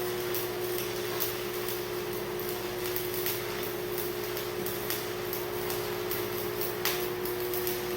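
Electric welding arc crackling and sputtering irregularly over a steady electrical hum, laying a weld bead on the loader's steel tube.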